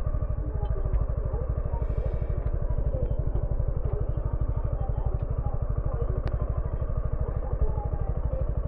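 Suzuki V-Strom 250SX's single-cylinder engine running steadily with an even, rapid pulse and no revving. A couple of faint ticks are heard over it.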